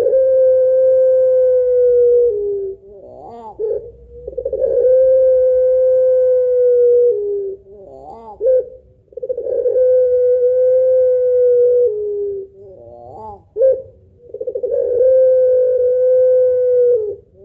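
Puter pelung (Barbary dove) giving its long 'laughing' call: long, steady, held notes, each ending in a drop in pitch, separated by short warbling bursts. The pattern repeats about every five seconds, three full times and a fourth starting near the end.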